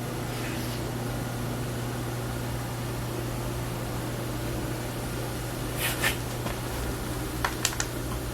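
South Bend geared-head lathe running with a steady mechanical hum. A short rustling burst comes about six seconds in, followed by a few sharp clicks near the end.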